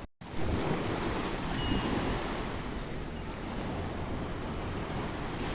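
Sea surf washing and breaking continuously, with wind buffeting the microphone as a low rumble. The sound drops out for a moment at the very start, then comes straight back.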